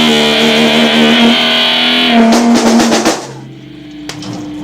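Live band with guitar and drums playing the last bars of a song, distorted by an overloaded camcorder microphone. It closes with a run of drum and cymbal hits a little past two seconds in, then the music stops about three seconds in, leaving a steady amplifier hum and a few clicks.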